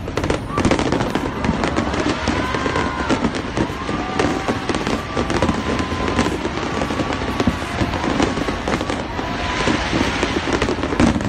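Aerial fireworks going off in a dense barrage, with many sharp bangs and crackles in quick succession.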